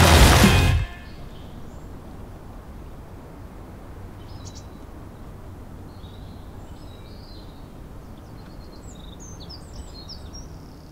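Music cuts off under a second in, leaving a steady outdoor background hiss with small birds chirping, the chirps more frequent near the end.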